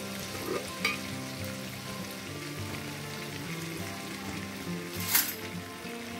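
Butter and oil sizzling steadily in a hot kadhai as it is stirred with a metal slotted spoon. The spoon clinks sharply against the pan twice, lightly about a second in and louder near the end.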